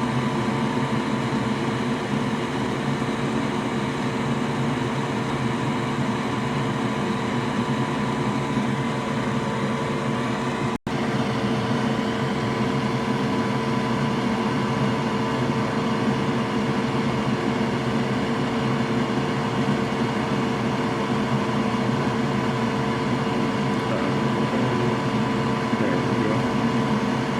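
Steady whir of an electric fan or blower on the repair bench, such as a fume extractor or hot-air rework station, running with a constant hum. The sound drops out for an instant about eleven seconds in.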